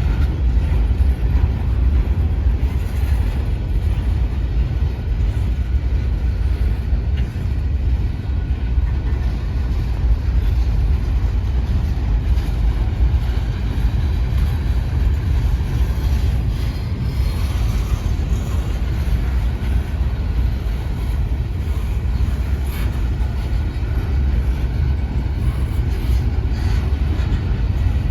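CSX freight train rolling past at trackside: a loud, steady low rumble that does not let up.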